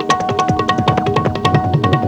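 Background music with a fast hand-drum rhythm, several strokes a second, over short falling bass notes.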